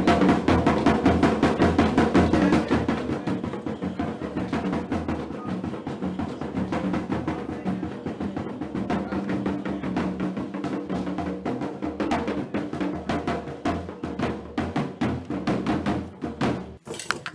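Drums playing a fast, dense rhythm with a pitched musical backing. The playing is loudest at first and drops away near the end.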